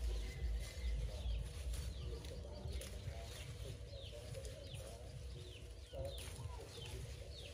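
Birds chirping over and over in short falling notes, with a few sharp snaps as water spinach stems are cut with a knife.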